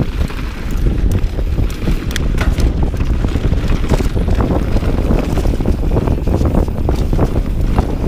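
Mountain bike descending a dirt trail at speed: heavy wind rush on the camera microphone over the tyres rolling on dirt, with the bike clattering and clicking over bumps.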